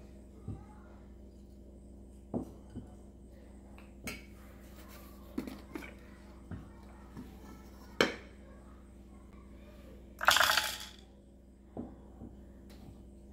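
Dishes and utensils being handled in a kitchen: scattered light clinks and knocks, the sharpest about eight seconds in, and a brief louder noisy burst a little after ten seconds, over a steady low hum.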